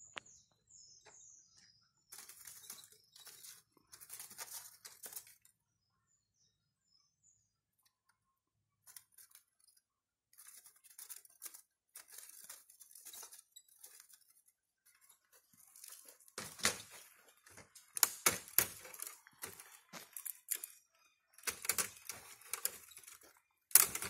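Wooden bird cage with a wire door being handled: irregular scraping, clicks and rattles of wood and wire, sparse at first and turning into dense, sharp clicking over the last third. A few faint high chirps sound about half a second in.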